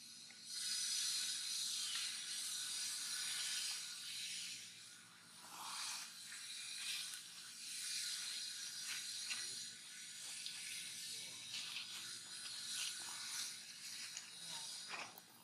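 Shrill insect chorus: a dense, rasping high drone that starts suddenly, dips about five seconds in, and cuts off near the end.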